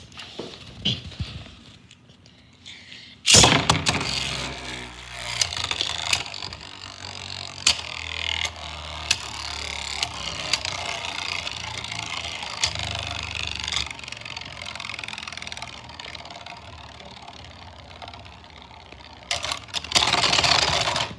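A Beyblade spinning top launched into a plastic stadium with a sudden loud rip about three seconds in. It then spins and rattles across the plastic floor with repeated sharp clicks as it knocks into the ball and walls, slowly winding down, with a louder noisy stretch near the end.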